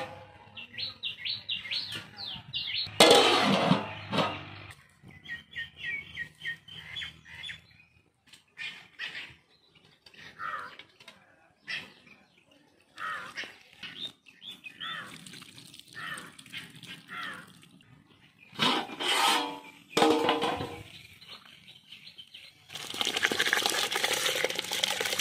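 Small birds chirping in quick repeated phrases, with brief louder noises about three and nineteen seconds in. Near the end, soaked rice is poured from a bowl into a pot of water, giving a dense rushing splash.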